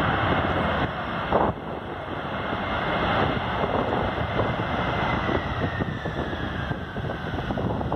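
Jet engines of an Amazon Prime Air cargo jet rolling down the runway, a whine sliding slowly lower in pitch over the noise of the engines. Wind buffets the microphone.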